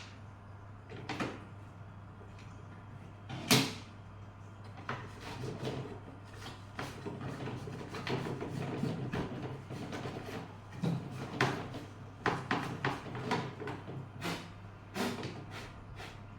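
Clicks, knocks and light rattles from handling the plastic parts of an extension-lead socket and tools during a repair, over a steady low hum. There is one sharp knock about three and a half seconds in and a quick run of clicks near the end.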